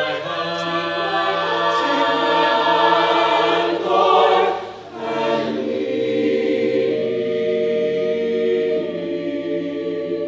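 Mixed choir of men and women singing held chords in several parts, with a short break about five seconds in before a new chord begins.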